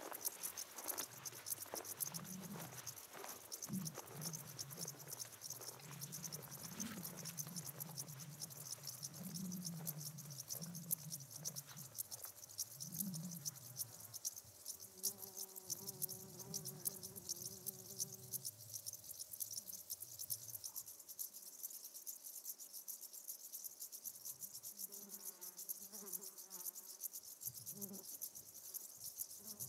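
A chorus of crickets chirping in dry meadow grass: a dense, steady, high-pitched shimmer of many insects. Faint low rumbling runs under it for about the first two-thirds.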